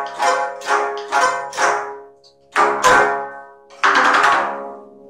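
Geomungo, the Korean six-string zither, plucked and struck with a bamboo plectrum: a run of plucked notes, a short pause about two seconds in, then a heavier stroke and a loud sweeping stroke across the strings near four seconds in that rings and fades.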